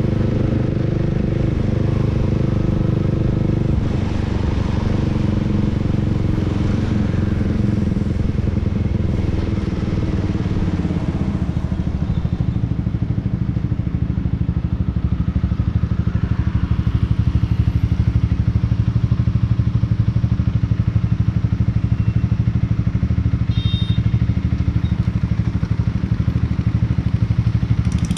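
Honda Rebel 300's parallel-twin engine running steadily while riding, heard from on the bike, its note shifting a little and getting somewhat louder from about halfway through.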